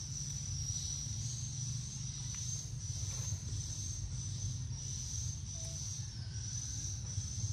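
A chorus of insects trilling steadily at a high pitch, swelling and fading in waves about once a second, over a low steady rumble.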